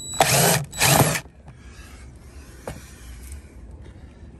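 Cordless impact driver running in two short bursts, about half a second each, backing the last screw out of a car door trim panel. A light click follows near the middle.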